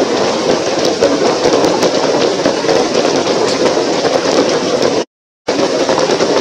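Steady rain with a faint patter of drops, broken by about half a second of dead silence about five seconds in.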